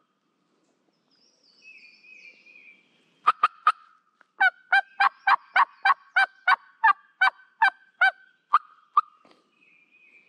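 Turkey call run loudly: three quick sharp notes, then a long even series of about a dozen yelps, roughly three a second, each breaking from a high note to a low one, trailing off with a couple of softer notes; calling to make a distant gobbler gobble again and give away his position. A songbird sings faintly in the first few seconds.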